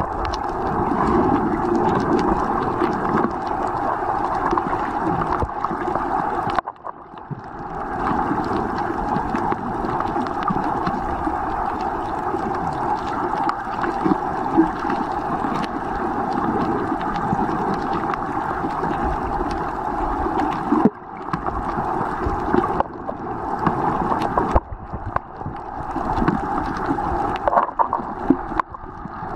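Muffled underwater rush heard through a camera held below the surface: a steady, dense wash of water noise that dips briefly several times.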